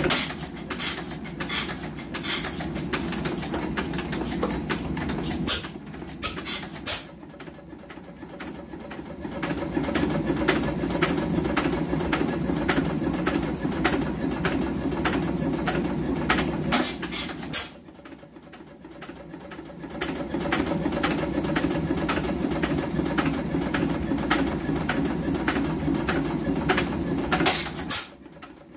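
A 1915 Majestic 5 hp hit-and-miss engine, a Waterloo Boy contract engine, running with a fast, even mechanical clatter. Its running is broken by quieter spells about six seconds in, about eighteen seconds in and again near the end, typical of the engine coasting between firing stretches.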